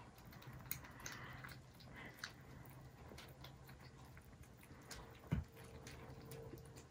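Several Scottish Fold and Scottish Straight kittens eating dry kibble from a shared plate: faint, scattered crunches and clicks of chewing. One low thump about five seconds in.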